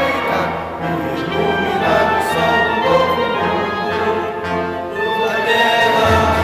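Orchestral background music with strings, with a low bass growing stronger near the end.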